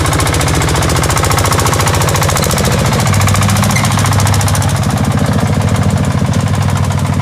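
Single-cylinder diesel engine of a boat-hulled paddy-field tractor chugging in rapid, even beats as it works a rotary tiller through flooded mud; its low note swells about three seconds in.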